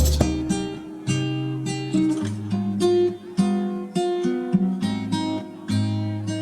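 Background music: chords strummed on a stringed instrument, a new chord about every half second to a second.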